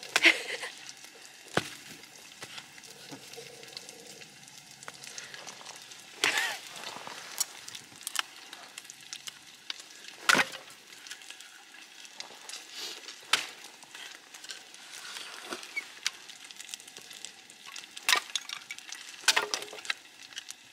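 Eating with chopsticks from a paper cup: scattered sharp clicks and a few short louder scrapes, over a faint continuous crackle.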